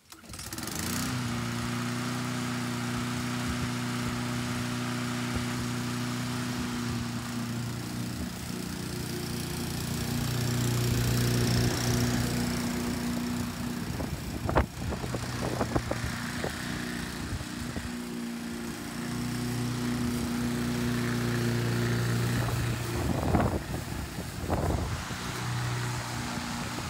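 Honda HRN216VKA walk-behind mower's single-cylinder engine running steadily while mowing grass, growing louder for a few seconds twice. A few sharp knocks come near the middle and again near the end.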